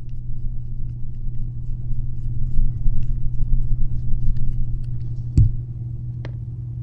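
A steady low hum with faint light ticks, and two sharper clicks about five and a half and six seconds in, from small metal parts as a lock cylinder is handled on the bench.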